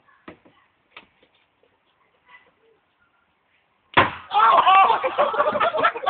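A few faint clicks, then about four seconds in a sudden loud bang as a homemade spud gun fires. Loud voices follow at once and carry on.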